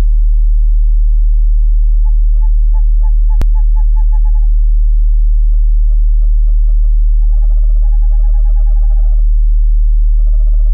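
Owl calls: runs of short hoots repeated several times a second, coming in bursts with pauses, two calling over each other at times. Under them runs a steady deep tone, with a single sharp click about three and a half seconds in.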